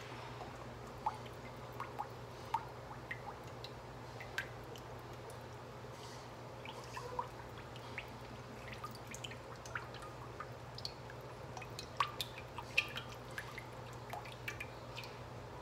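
Cooking oil poured from a bottle into a wok, faint, with scattered small ticks and drips, several close together about twelve seconds in.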